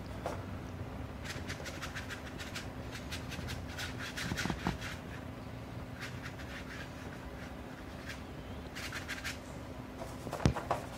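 Watercolour brush scratching and dabbing on paper in runs of quick short strokes, over a faint steady hum. A single soft knock comes about ten seconds in.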